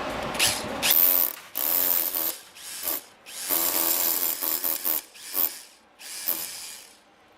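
Power drill boring a hole in the building wall for a scaffold tie anchor, run in about four short bursts with pauses between.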